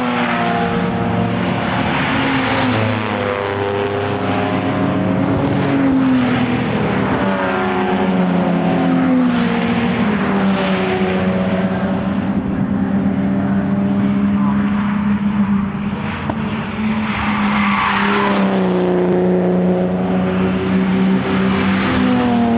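Several Jaguar race cars running at racing speed, their engine notes rising and falling through gear changes as they pass, one after another and overlapping. There is a short lull about two-thirds of the way through before the next car's engine climbs in.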